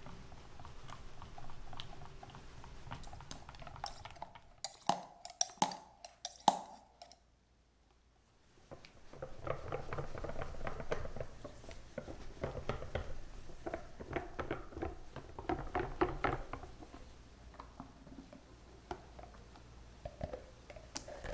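Silicone-coated wire whisk stirring dissolved gelatin into a thick strawberry cream in a glass bowl, with soft repeated scrapes and clicks against the glass. A few sharper taps come about five seconds in, then a short pause, then steady fast whisking again.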